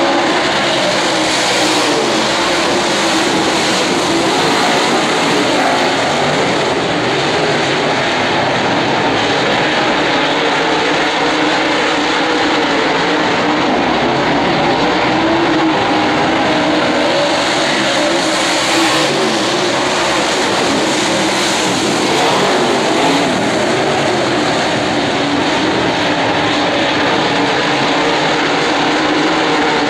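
A pack of dirt late model race cars with big V8 engines running hard around a dirt oval. It is a loud, steady engine drone that swells now and then as cars come by.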